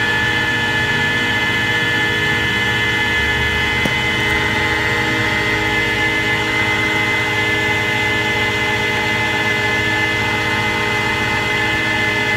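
CNC turret lathe running with its spindle turning a steel bar in the chuck, a steady machine hum and whine made of several constant tones.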